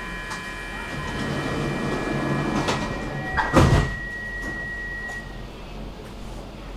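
Stockholm metro train's door-closing warning tone, several steady notes sounding together, while the sliding doors run shut; the doors close with a loud thump about three and a half seconds in. A single higher tone carries on for about two seconds after.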